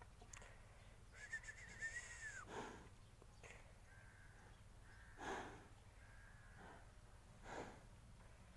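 Buffalo breathing hard during mating: three faint rasping breaths about two and a half seconds apart, with a brief high wavering call about a second in.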